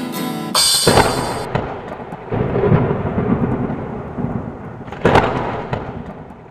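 Thunder sound effect: a sharp thunderclap about a second in, a rumble, and a second clap about five seconds in, then fading away. A brief bright high shimmer comes just before the first clap.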